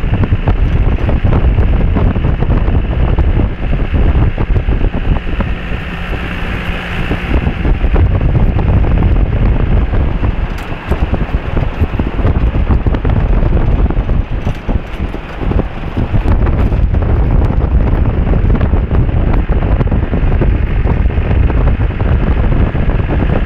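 Wind buffeting a microphone held out of the window of a moving Land Rover Defender, over the running noise of the vehicle driving across desert sand and gravel.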